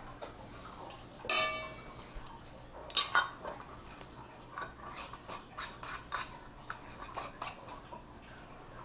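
A metal spoon scraping and clinking in a stainless steel mixing bowl, with one loud ringing clink about a second in and another near three seconds; then a run of small faint clicks as the lid is screwed onto a small glass jar.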